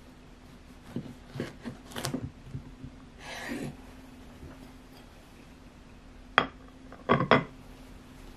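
Kitchen handling sounds: a few soft knocks and a brief rustle as slices of sandwich bread are moved about on a wooden cutting board. Then, the loudest part, a sharp clink and two quick knocks as a ceramic plate is set down on the tiled counter.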